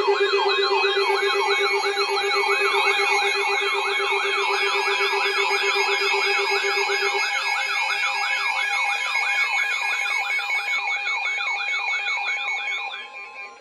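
Several electronic emergency alert tones sounding at once: a fast warble sweeping up and down about three times a second, a second higher warble, and steady held tones. The lowest steady tone drops out about halfway through, and all the tones stop near the end.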